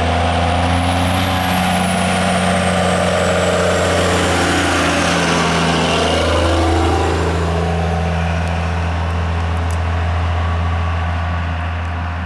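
Diesel Dodge Ram 3500 pickup with a Cummins inline-six turbo-diesel, towing a gooseneck flatbed trailer, accelerating while rolling coal, then passing close by and driving off. The engine note drops about five seconds in as the truck goes past, and a high whistle rises and falls over the first few seconds.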